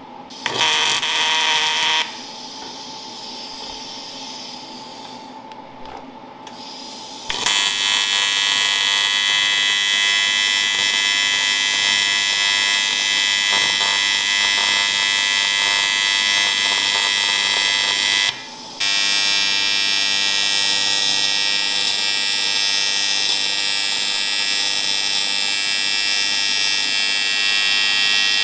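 TIG welding arc on aluminium, with the steady electric buzz of AC welding. A short burst comes at the start, then a quieter stretch, then a long steady buzz from about seven seconds in, broken once by a half-second pause near eighteen seconds.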